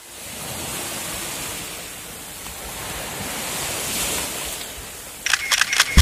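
Small waves washing onto a sandy shore in a steady hiss of surf, with splashing as someone runs out through the shallows. Near the end comes a quick run of five or six sharp clicks.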